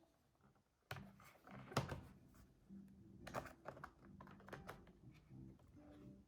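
Irregular light clicks and taps of a laptop's plastic and small metal parts being handled, the sharpest a little under two seconds in, with faint background music underneath.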